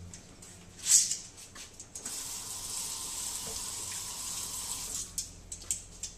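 A clack about a second in, then a kitchen tap running steadily for about three seconds, followed by a few light clicks.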